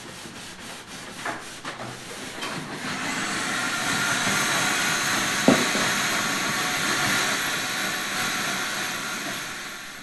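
Wooden canoe gunwales being sanded: a few light rubbing strokes at first, then a steady, loud hiss of sanding from about three seconds in that cuts off at the end. A single sharp knock comes about halfway through.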